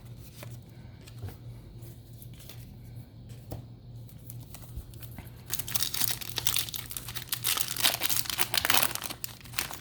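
Foil booster pack wrapper crinkling and tearing open, a dense crackle that starts about halfway through after a few seconds of faint light handling clicks.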